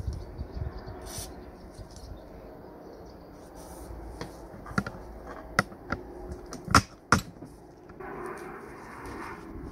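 Small hard clicks and knocks of metal tool parts being handled, scattered through the middle with two sharper ones close together, then a short stretch of scraping near the end.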